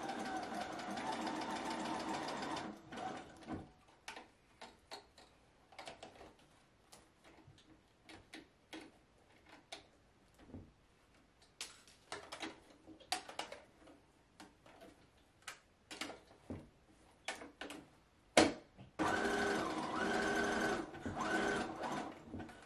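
Sewing machine stitching an elastic band into a wig. It runs steadily for about three seconds, then stops for a long stretch of light scattered clicks and taps. A sharp click comes just before it starts again for about three seconds near the end.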